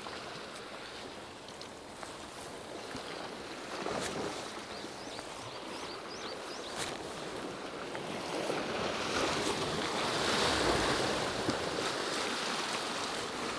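Sea waves washing and breaking over a rocky shoreline, with wind on the microphone; the surge swells louder about two-thirds of the way through.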